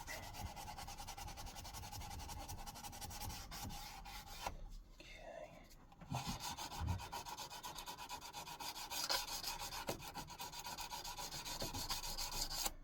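Abrasive paper rubbed by hand in quick back-and-forth strokes over the steel of an axe head, smoothing the metal. The strokes stop briefly near the middle, then carry on.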